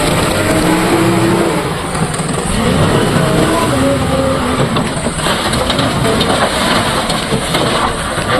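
JCB 3DX backhoe loader's diesel engine running and revving up and down as it works, with a brief patch of clattering about five seconds in.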